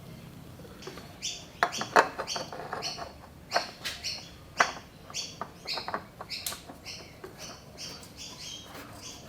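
Birds chirping: a rapid run of short, high, repeated calls that starts about a second in and goes on, loudest in the first half.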